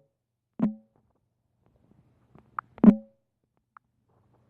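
Two sharp knocks about two seconds apart, each with a short low ring, and a brief faint high blip just before the second.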